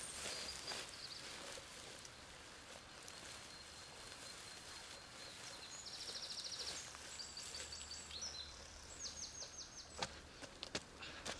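Quiet woodland ambience with birds singing short, rapid high trills, once a little past the middle and again near the end. A few footsteps on dry leaves come in the last second or so.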